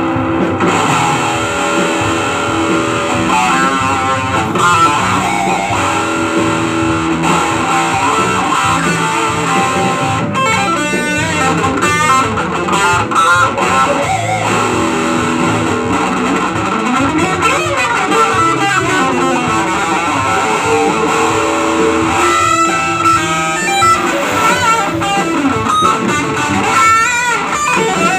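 Electric guitar played through a small amplifier, a continuous run of picked notes with held notes that waver in pitch several times.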